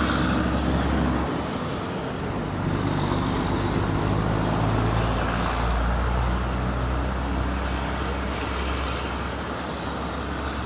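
Diesel engine of heavy construction machinery running steadily with a deep drone, which dips briefly about a second in and then picks up again.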